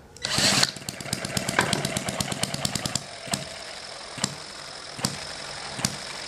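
Eachine ETX (M91) vertical hit-and-miss model gas engine spun over by a cordless drill starter: a short drill whir, then the engine catches and fires fast for about two seconds. It then settles into hit-and-miss running, one sharp firing stroke roughly every second with the flywheel coasting between.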